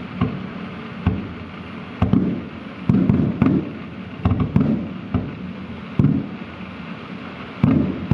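Aerial firework shells bursting in a steady series, about ten deep booms roughly a second apart, each trailing off before the next.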